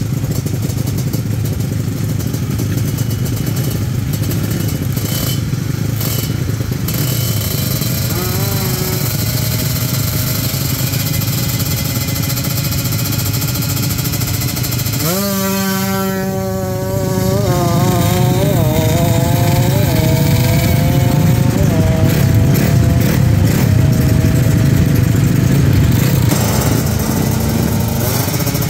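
Two-stroke Kawasaki Ninja engine in a drag bike being revved on the throttle. There is a short rise in revs about a third of the way in. About halfway through the revs climb sharply and stay high, wavering with throttle blips and louder for a while, over steady engine noise.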